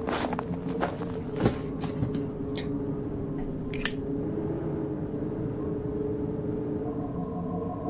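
Footsteps crunching and clattering over a pile of rubbish in the first two seconds, then a single sharp click about four seconds in, over a steady low drone. A higher steady tone comes in near the end.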